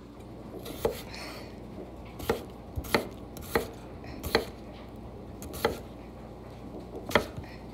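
Kitchen knife chopping red potatoes on a wooden cutting board: about eight sharp knocks of the blade through the potato onto the board, at an uneven pace, the loudest near the end.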